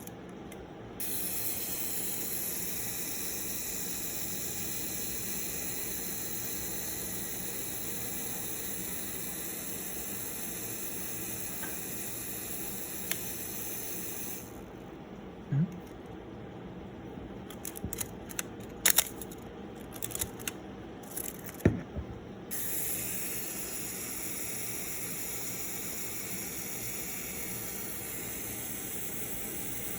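Canon F-1 film SLR being worked by hand: a run of sharp mechanical clicks about halfway through, from its controls and its shutter firing at the 1-second setting, over a steady hiss.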